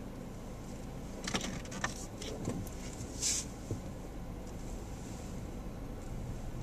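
Car interior: steady low rumble of the car and its tyres rolling over a dirt driveway, with a cluster of clicks and knocks starting about a second in and a short hiss near the middle.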